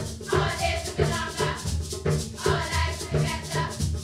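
A group of schoolgirls singing together in unison over a steady, regular percussive beat with a shaker-like rattle.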